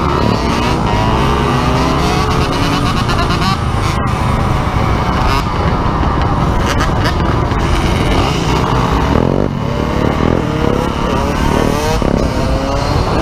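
Several dirt bike and ATV engines running and revving up and down, their pitch rising and falling, heard from a camera mounted on a moving dirt bike, with wind rushing over the microphone.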